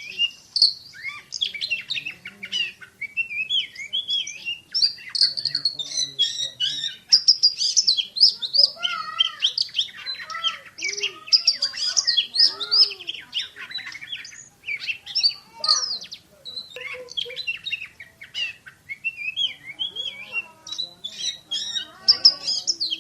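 Oriental magpie-robin (kacer) singing a fast, dense song of sharp whistled notes and quick trills that hardly pause, the rapid-fire 'shooting' style prized in songbird contests.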